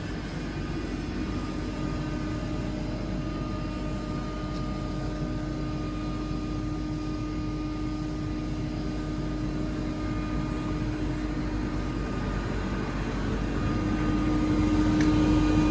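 Atlas Copco GA 7P 7.5 kW rotary screw air compressor running under load, a steady hum with a clear tone, as it builds pressure in its receiver. It grows louder about 13 seconds in.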